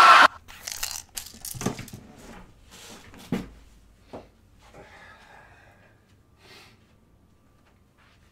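Song playback stops abruptly just after the start. Then come scattered rustles and soft knocks of a person moving about and handling things in a small room, the loudest about three seconds in, with a quiet stretch near the end.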